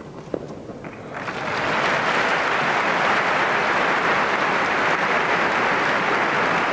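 Stadium crowd applauding after a tennis point, swelling in about a second in and holding steady. A single short knock sounds just before.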